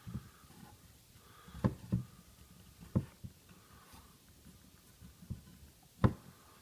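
Quiet handling sounds of an oiled piston with new seals being rotated and pressed into its cylinder in a BMW dual Vanos unit, to shape the seals. There are a few soft knocks: two close together about a second and a half in, one at about three seconds, and the sharpest at about six seconds.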